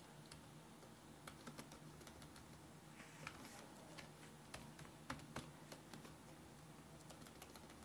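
Faint typing on a computer keyboard: scattered key clicks at an irregular pace.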